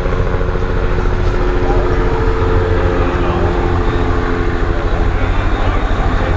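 Helicopter hovering, its rotor beating in a fast, steady chop with a steady engine whine, loud throughout, over the murmur of a crowd.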